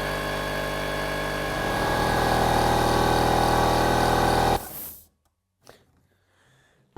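Metabo HPT 2-gallon MultiVolt oil-free air compressor's motor and pump running steadily; it gets a little louder about two seconds in and cuts off suddenly after about four and a half seconds.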